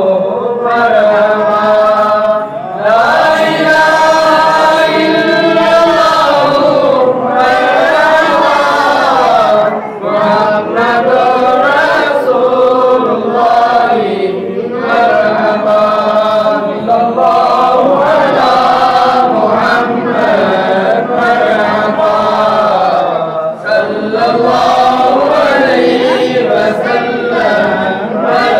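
Men's voices chanting a mawlid, an Islamic devotional recitation in praise of the Prophet, melodically and in chorus. The lines are held and sung continuously, with brief breath pauses between phrases.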